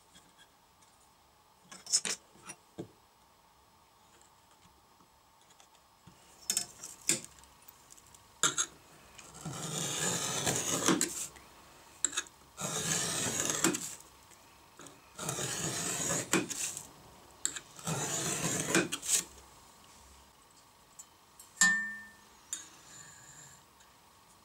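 Steel scriber point scratching lines into a steel plate along a ruler: four long scraping strokes, each about a second and a half, with a few light clicks of the tool and ruler being handled before and after.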